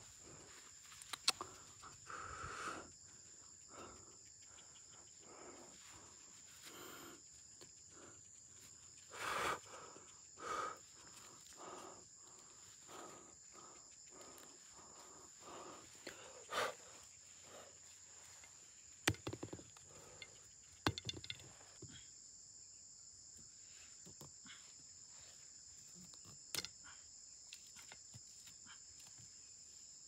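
Insects shrilling in a steady, high, even tone. Over it come scattered soft rustles and a few sharp clicks, the loudest about nine to eleven seconds in.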